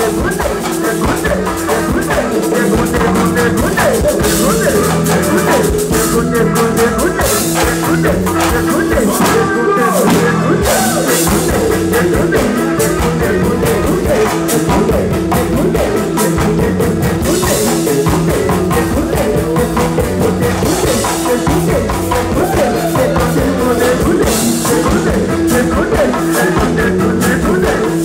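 Live pagode baiano band music: hand drums (congas and tall drums) over a drum kit with a steady driving beat, with some singing.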